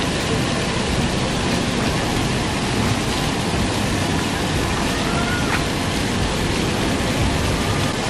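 Rows of small ground-level fountain jets spraying up through floor grates and splashing back onto wet stone paving, a steady hiss of falling water.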